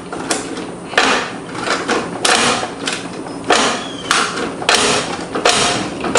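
A walk-behind mower's operator-presence bail lever being squeezed against the handle and let go, over and over, with a sharp rattling clack about once or twice a second. The lever's cable to the flywheel brake is stiff and overstretched, just sprayed with WD-40, and is starting to work more freely.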